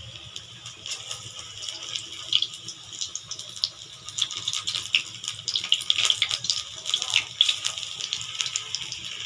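Jackfruit kofta balls deep-frying in hot oil in a kadai: a steady sizzle with many sharp crackling pops, busier in the second half.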